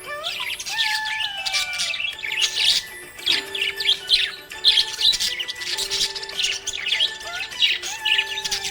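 Budgerigars chirping rapidly and continuously in quick, high twittering bursts, over background music.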